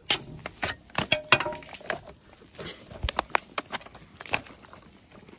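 Irregular knocks, clinks and clatters of an aluminium drink can being knocked about and tipped over on a wooden table by a hand puppet.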